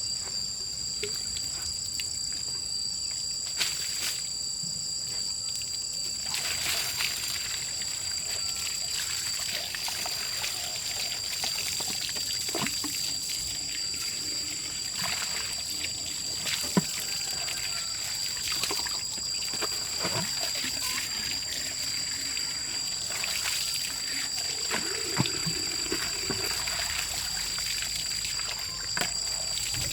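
Insects trilling steadily on two high pitches, with scattered clicks and knocks.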